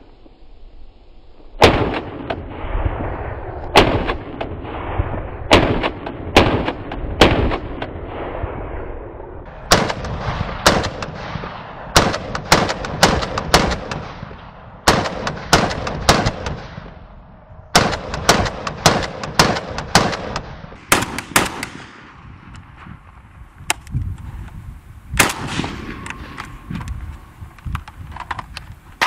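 VULKAN-M bullpup Kalashnikov rifle fired in several strings of quick single shots, each shot sharp and loud with a ringing echo after it.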